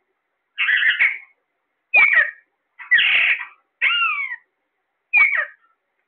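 Alexandrine parakeets calling: five short screeching calls about a second apart, several of them sliding down in pitch.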